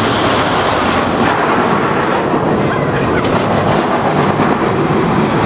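Miniature amusement-park train running along its track, a steady noise of wheels on rails.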